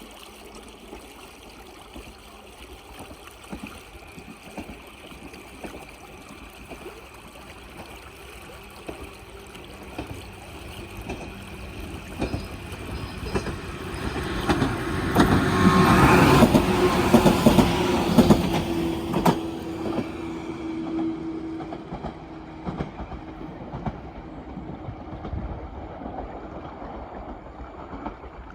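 A JR Bantan Line 103-series electric train approaches and passes close by, with wheels clicking over rail joints. It grows louder to a peak about halfway through, then fades as it runs away.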